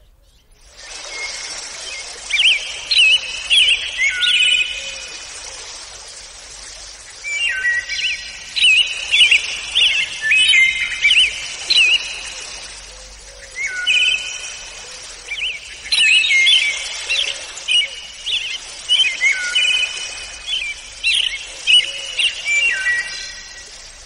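House finch song: several long phrases of quick, warbling, slurred notes, each lasting a few seconds, with short pauses between them.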